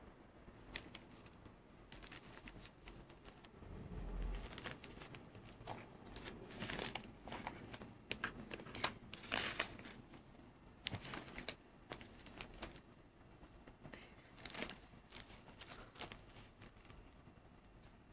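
Close, quiet rustling and crinkling of fur and blanket fabric as a hand plays with a tabby cat. It comes in irregular spells, busiest in the middle and again near the end, with scattered sharp clicks and a dull thump about four seconds in.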